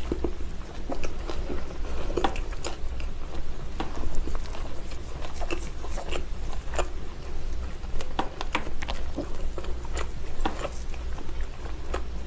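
Close-up chewing and biting on a whole braised pig's trotter (jokbal): irregular mouth clicks and smacks, with a steady low hum underneath.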